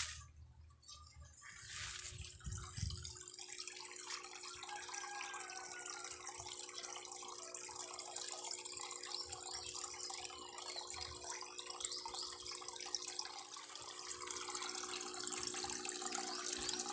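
Water pouring from three pipe spouts into a fish pond: a steady splashing that sets in about two seconds in.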